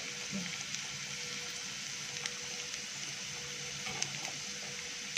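Chopped onion and curry leaves sizzling in hot oil in a small pan for a tempering: a steady hiss with a few faint crackles.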